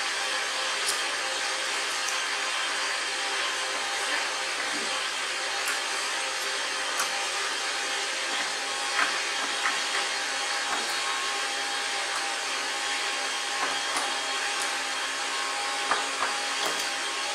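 A steady rushing noise like a running fan, with light scattered clicks and taps of a screwdriver against the TV's plastic back cover.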